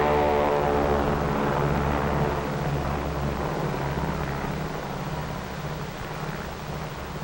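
Four-engine propeller aircraft droning as it flies past and away. The engine tone fades into an even rushing noise over the first couple of seconds, and the whole sound slowly dies down.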